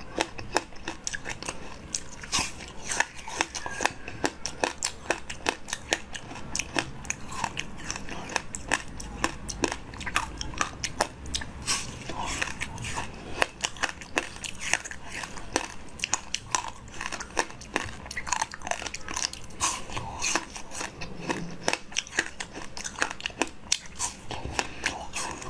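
Frozen fruit ice bar being bitten and chewed right at the microphone: a steady run of crisp crunches and crackles as frozen pieces break between the teeth, with chewing between bites.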